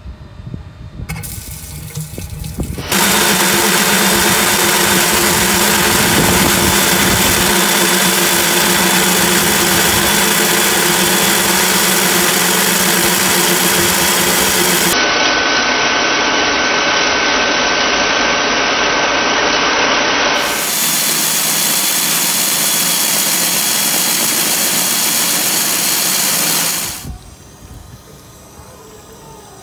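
Eibenstock electric diamond core drill motor running steadily with a constant hum, wet-drilling concrete with water fed to the bit. It comes in suddenly about three seconds in and drops away sharply near the end.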